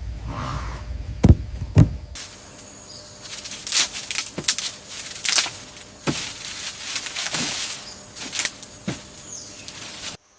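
Outdoor ambience with a run of short knocks and rustles: two sharp knocks early on, then scattered rustling strokes. The low background rumble stops suddenly about two seconds in.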